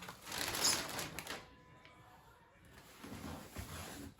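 Model-train packaging being handled: about a second of rustling with a few light clicks near the start, then quieter shuffling of boxes.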